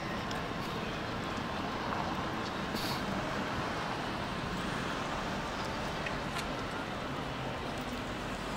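Steady road traffic noise of a busy city street, with a brief high hiss about three seconds in.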